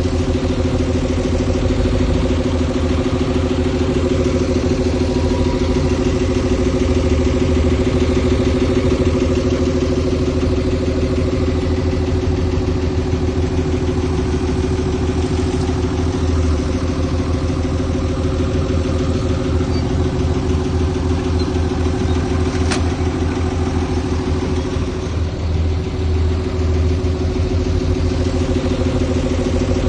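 Heavy diesel engine of earthmoving machinery running steadily at a constant speed, with a deep rumble and little change in pitch. One short sharp click sounds about three quarters of the way through.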